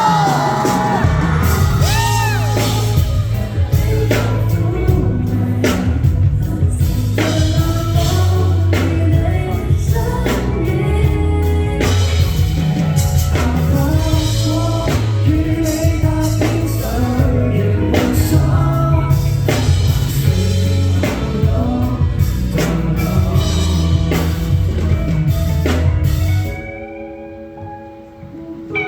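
Band music with a singer, a drum kit keeping a steady beat and a bass line under it. The music cuts off about 26 seconds in, leaving it much quieter before a few guitar notes near the end.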